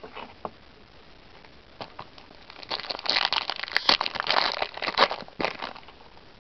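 Foil wrapper of a Yu-Gi-Oh booster pack crinkling as it is opened, a few light clicks first, then about three seconds of dense crackling from about two and a half seconds in.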